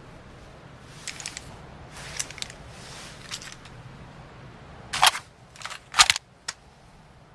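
Bolt of an M24 bolt-action sniper rifle being worked: a few light metallic clicks, then two loud sharp clacks about a second apart with smaller clicks between them, as the bolt is opened, drawn back and run forward.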